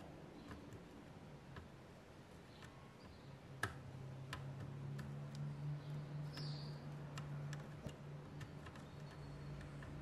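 Faint scattered ticks and small pops of flux crackling as a soldering iron heats the pins of a USB port on a laptop motherboard, with one sharper click about a third of the way in and a brief hiss later on. A low steady hum comes in after the sharp click.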